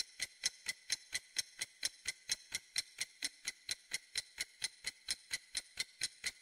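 Clock ticking sound effect: an even tick-tock of sharp clicks, about four to five a second, alternating louder and softer, marking time while waiting.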